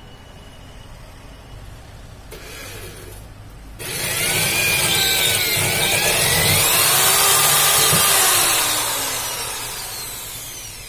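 Corded electric drill boring into a painted wall: a short burst about two seconds in, then running loud from about four seconds in with a whine that slides in pitch, and easing off near the end.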